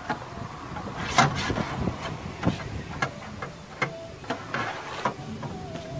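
Irregular light taps and clicks, the sharpest about a second in, from paintless dent repair work on a car door's sheet metal panel.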